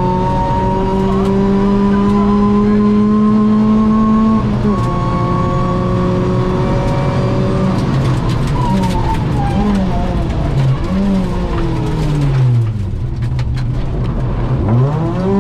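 Ford Fiesta ST rally car's 2.0-litre four-cylinder engine heard from inside the cabin, held at high revs with the pitch slowly climbing, then dipping about four and a half seconds in. From about eight seconds it slows with downshift throttle blips, the revs sinking low into a tight corner, then rising sharply as it accelerates out near the end.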